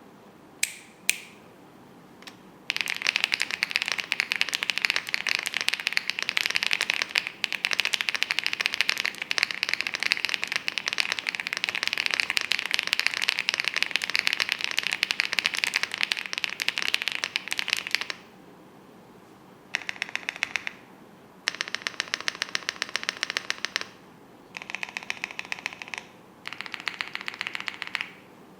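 Elec Fox INKY75 mechanical keyboard, completely stock, being typed on: two single keystrokes, then about fifteen seconds of fast continuous typing, then four short bursts of rapid, evenly spaced keystrokes after a pause.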